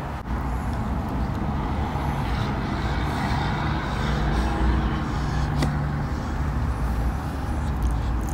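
Steady low rumble of a car's engine running, heard from inside the cabin, with one faint click about five and a half seconds in.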